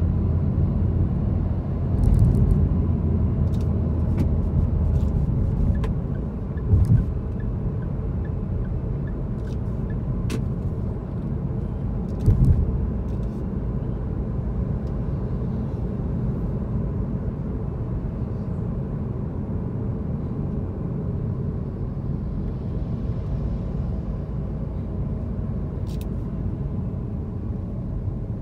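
A car being driven: a steady low rumble of engine and road noise, with two brief low thumps, one about seven seconds in and one about twelve seconds in, and a few faint light clicks.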